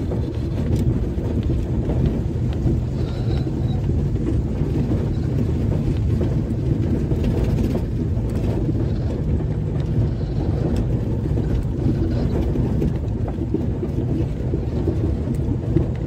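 A car driving on a rough dirt road, heard from inside the cabin: a steady low rumble of engine and tyres, with faint small knocks and rattles.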